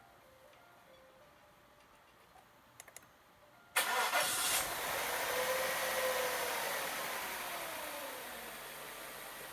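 A few light clicks, then about four seconds in a Mercedes-Benz 500SL's five-litre V8 starts abruptly, its revs flaring up and then slowly settling back toward idle.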